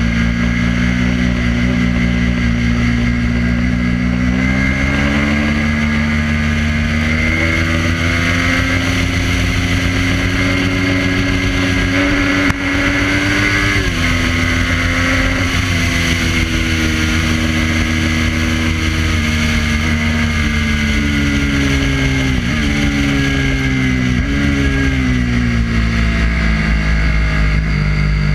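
Triumph Daytona 675's three-cylinder engine pulling hard at track speed, with a steady rush of wind and road noise on the fork-mounted microphone. The revs climb a few seconds in and break briefly about halfway through. Later the pitch drops quickly twice and picks up again as the rider works the gears.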